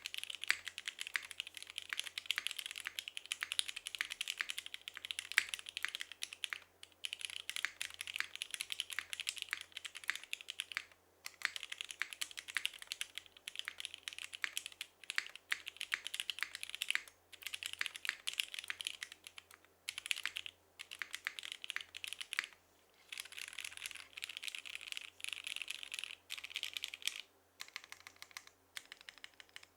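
Continuous typing on a Tomo mechanical keyboard with lubed and filmed SP-Star Meteor White linear switches, top-mounted aluminium plate and GMK keycaps: a rapid stream of light, thin-sounding clacks, broken by several short pauses.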